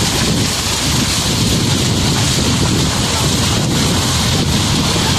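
Water pouring down the Hidroituango dam spillway, a loud steady rush.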